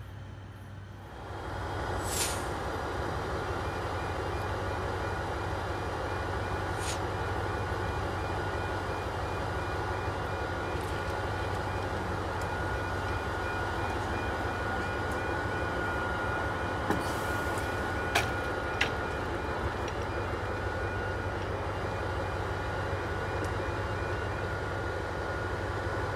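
Level crossing's audible warning sounding while the barriers lower: a repeating alarm tone over a steady low drone, with a few sharp clicks. It starts about a second in.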